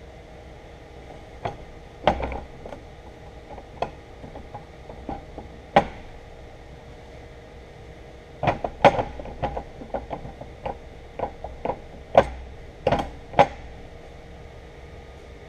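Irregular metal clinks and knocks, some single and some in quick clusters, as a metal ring is handled and worked into a bore of a milling-machine casting on a steel table, where it keeps catching. A steady hum runs underneath.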